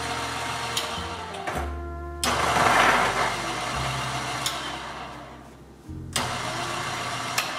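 Niche Zero conical burr coffee grinder running as it grinds a dose of espresso beans, a steady motor hum with grinding noise.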